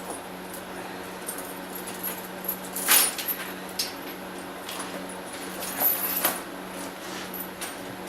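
Metal tire chains clinking and jingling as they are worked onto a lawn tractor tire, a few separate clinks with the loudest about three seconds in and again around six seconds.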